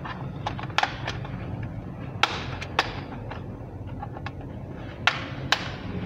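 Plastic snap-fit clips of an Acer Z1402 laptop's case popping loose as the case halves are pried apart by hand: a series of sharp clicks, the loudest two pairs about two seconds in and again near the end. A low steady hum runs underneath.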